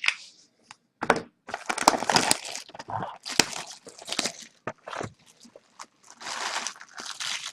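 Crinkling and rustling of plastic card-pack wrappers being handled, with a few sharp clicks and snaps in between.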